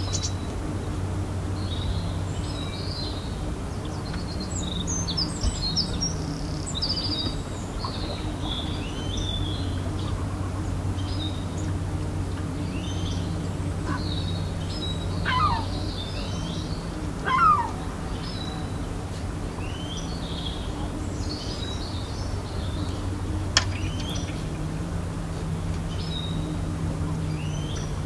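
Small birds chirping and singing continuously, with two louder falling calls about halfway through. A steady low hum runs underneath.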